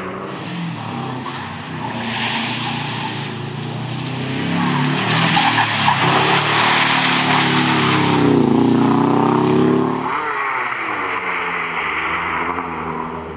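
Small rally hatchbacks driven hard on a wet, slushy surface: engines revving up and down, with a rush of tyre and spray noise. It is loudest from about five to ten seconds in, where the engine note climbs, then the sound changes abruptly to another car.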